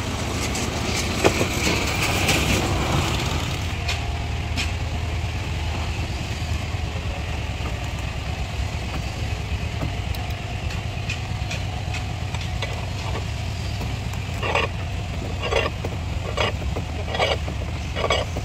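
Steady low drone of an idling engine. Near the end comes a run of about five sharp knocks, roughly one a second, as a steel clamp is worked on the wooden hull planking.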